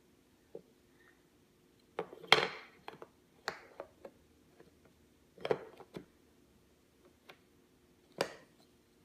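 Wooden jigsaw puzzle pieces knocking and tapping against a wooden puzzle board and tabletop as a small child handles and fits them: a handful of short, light knocks in small clusters, the loudest about two seconds in.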